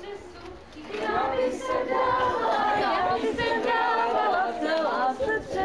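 A group of people's voices singing together, overlapping with chatter, loud and dense from about a second in.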